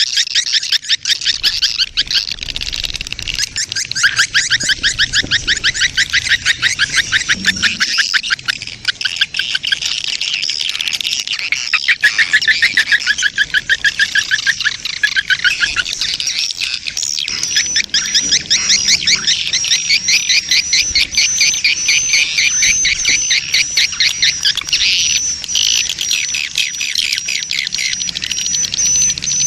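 Swiftlet lure call track: a colony of swiftlets chirping in fast, dense trains of short twittering chirps, the 'birahi' (mating) colony call played to attract swiftlets. About halfway through, a thin steady high tone joins the chirping.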